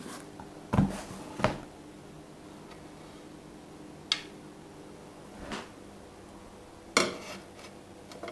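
A glass cutting board being lifted off a plastic tray and set down on a countertop: about five separate sharp knocks and clinks, the loudest about a second in and again near the end.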